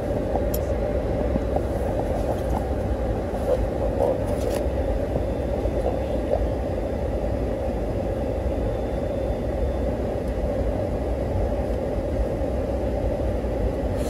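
Steady rumble and hum inside a car's cabin with the engine running, with a couple of brief faint clicks.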